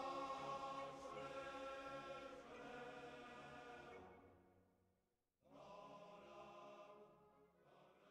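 Faint choral music, voices singing long held notes. It fades out about four to five seconds in and comes back shortly after.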